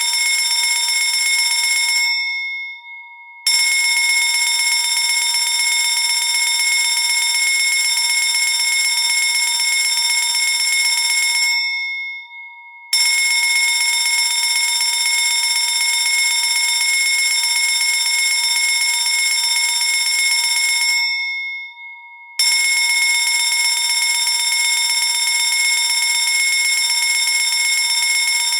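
Fire alarm bell ringing loudly and continuously in stretches of about eight seconds. Three times it breaks off for about a second and a half, the ring dying away before it starts again.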